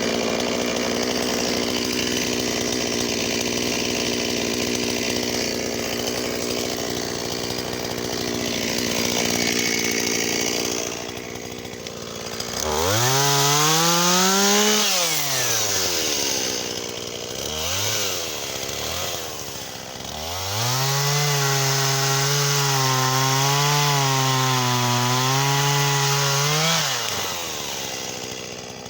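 Shindaiwa 488 two-stroke chainsaw cutting into wattle at full throttle for about twelve seconds. It then revs freely: one rev up and down, a couple of short blips, and a high rev held for several seconds before it drops back.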